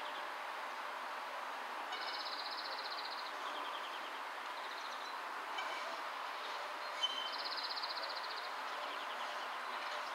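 Steady running noise of a Sheffield Supertram tram moving slowly along depot tracks, with a faint held hum. A small bird trills briefly twice, once about two seconds in and again past the middle, and there is one sharp click just before the second trill.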